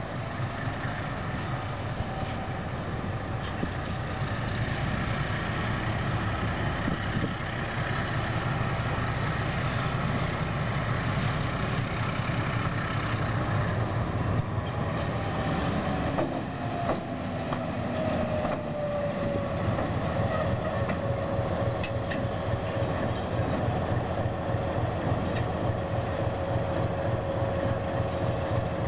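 Diesel shunting locomotive's engine running as it hauls freight wagons closer, the rumble swelling over the first few seconds. About halfway through a whine from the engine slides down in pitch and then holds steady.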